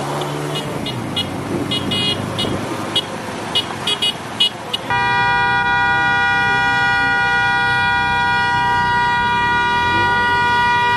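Motorcycle horns beeping in short toots over the running engines of a convoy of motorcycles. About five seconds in, a horn is held down in one loud, steady blare that goes on without a break.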